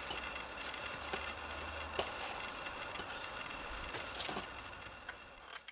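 Faint rustling, scraping and a few light clicks as a wooden starling box wired to a birch trunk is worked loose by hand, over a steady background hiss.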